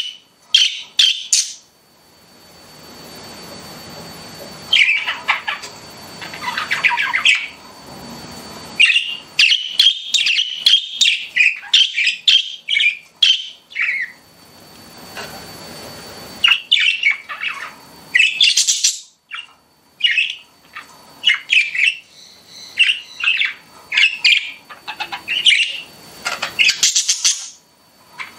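Pet budgerigars chattering: flurries of quick, high chirps and squawks, broken by a few pauses of a couple of seconds.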